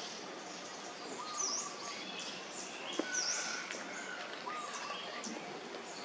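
Birds chirping and calling: two sharp high chirps over softer whistled notes, with a faint click about halfway through, against a steady outdoor background hiss.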